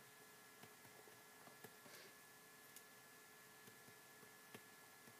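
Near silence: faint steady room hum with scattered faint clicks from a stylus tapping on a tablet screen while writing.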